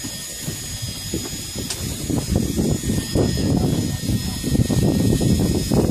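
Wind buffeting the microphone on a boat at sea, a rumbling rush that grows gustier and louder from about two seconds in, with a faint steady high-pitched whine above it.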